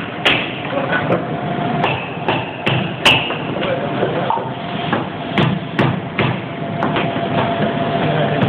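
Metal hand tool chipping and knocking at an old train car floor, in irregular sharp strikes about once or twice a second, with a steady workshop hum underneath.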